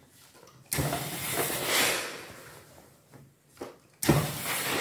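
Steam iron hissing in two bursts as it presses a fabric seam. The first starts suddenly about a second in and fades away over a couple of seconds; the second starts abruptly near the end.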